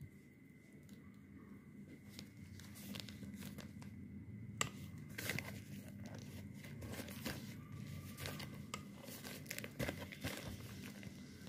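Plastic courier mailer crinkling and rustling as it is handled and turned over, in faint scattered crackles that grow busier partway through.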